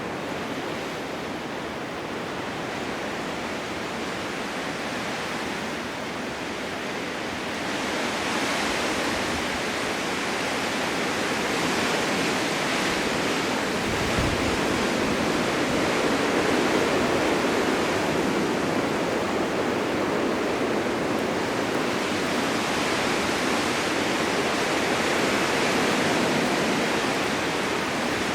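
Blizzard wind blowing steadily, a hissing rush that swells in gusts about a third of the way in and again around the middle.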